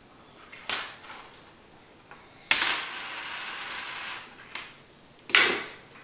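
Coins dropping onto a hardwood floor: sharp metallic clinks about a second in, halfway through and near the end, the middle one followed by a coin rattling on the boards for nearly two seconds as it settles.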